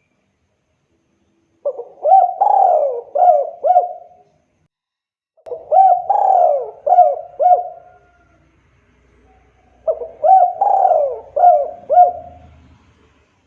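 Spotted dove (tekukur) cooing: three song phrases about four seconds apart, each a run of about five swooping coo notes.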